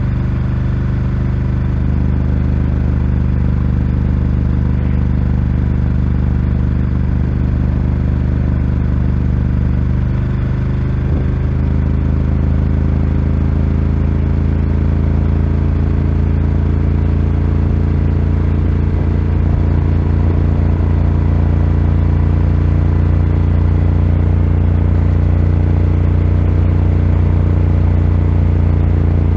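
Ducati Scrambler 1100's air-cooled L-twin engine running through a Termignoni exhaust under steady riding throttle. A brief break in the note about eleven seconds in, after which the engine pitch climbs slowly.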